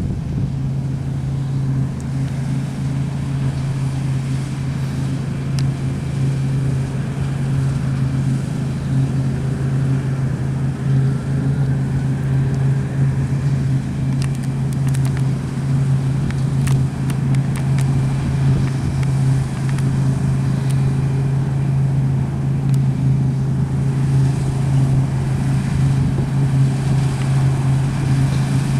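Large diesel harvest machine running steadily under load, a constant low drone. A few faint ticks and rattles about halfway through.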